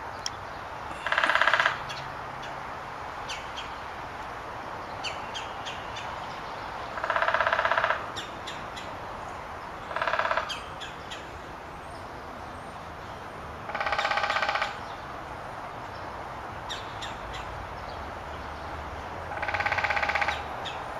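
Woodpecker drumming: five short rolls of rapid beak strikes on wood, each lasting under a second, spaced a few seconds apart.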